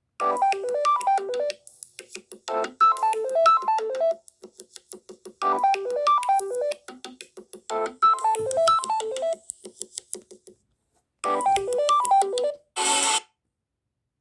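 Samsung Galaxy A71 ringtone playing: a short run of quick electronic keyboard notes stepping downward, repeated five times with gaps of two to three seconds. A brief burst of hiss comes near the end, and then it stops.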